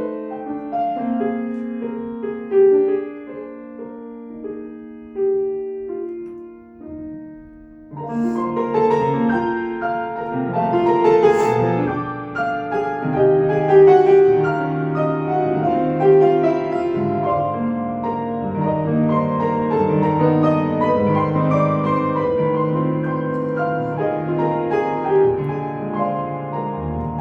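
Solo piano playing classical music: a few quieter held notes, then from about eight seconds in a loud, dense passage of chords.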